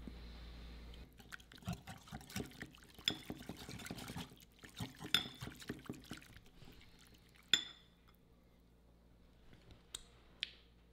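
Wire whisk stirring a liquid marinade in a ceramic bowl: wet sloshing with rapid clinks of the wires against the bowl, ending in one sharper clink about seven and a half seconds in, then only a few faint clicks.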